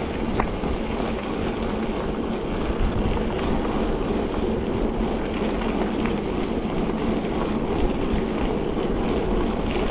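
Bicycle riding along a trail: steady tyre rumble with small clicks and rattles, and wind rumbling on the microphone.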